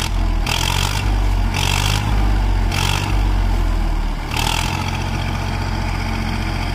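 Tractor engine running steadily under load, driving the hydraulic lift that tips a trolley full of sandy earth. About four short rushes of noise ride over the engine as the earth slides out of the back.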